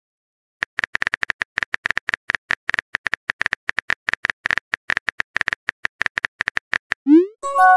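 Rapid clicking of a phone's on-screen keyboard as a text message is typed out, many taps a second. Near the end comes a short rising whoosh, then a chime begins.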